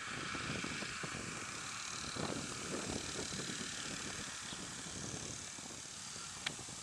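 Outboard motor of a small open motorboat running under way at a distance, a steady drone. A single sharp click comes near the end.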